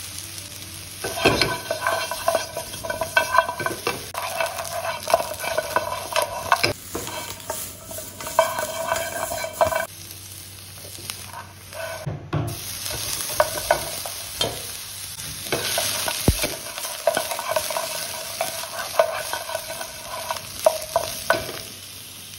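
Pork trotter pieces being stir-fried in a dry nonstick wok: a steady sizzle with irregular scraping and knocking strokes of the stirring against the pan, as the excess water is cooked off the meat.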